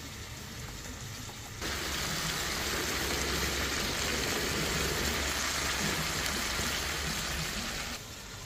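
A steady, rushing hiss like running water or sizzling, which starts abruptly about a second and a half in and cuts off abruptly near the end.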